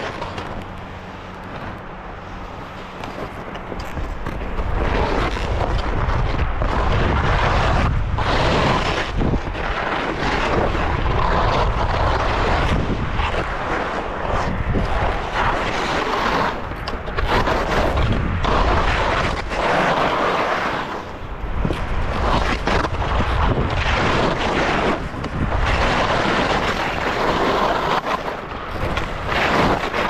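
Skis scraping over icy, hard-packed moguls, a loud, uneven rushing scrape with a deep rumble. It is quieter for the first few seconds, then swells and dips with each turn.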